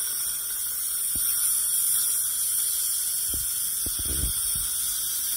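Dental suction tip running in the patient's mouth with a steady high hiss, with a few short low knocks around the middle.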